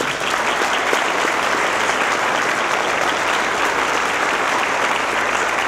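A roomful of people applauding.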